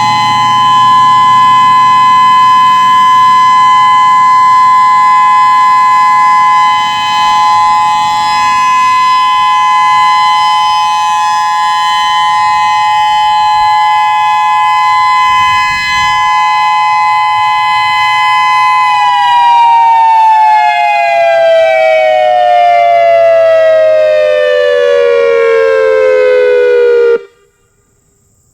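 Whelen WPS-3016 electronic outdoor warning siren holding a steady two-note tone, then gliding down in pitch for about eight seconds as it winds down. It cuts off sharply near the end.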